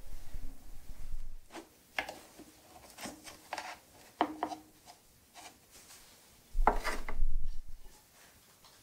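Clay work on a pottery wheel: a chamois rubbing the rim of a spinning clay cup for the first second and a half, then a string of short knocks and scrapes from handling the cup's wooden bat, and a louder rubbing thud about seven seconds in.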